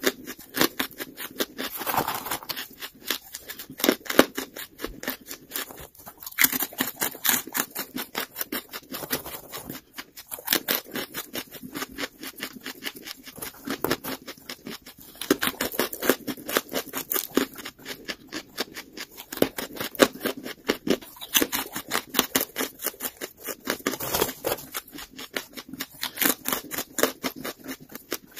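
Close-miked chewing of lump charcoal: dense, rapid crunching and crackling that goes on with only brief pauses.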